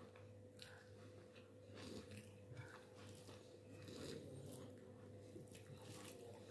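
Faint sounds of eating rice and curry by hand: soft, scattered small clicks and squishes of fingers working the food on a plate, over a low steady hum.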